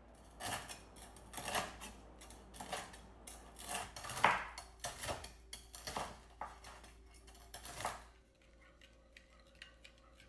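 Chef's knife chopping crispy fried pork on a wooden cutting board: irregular sharp chops, two to three a second. About eight seconds in, this gives way to a fork whisking a mayonnaise dressing in a ceramic bowl, a quieter rapid clicking.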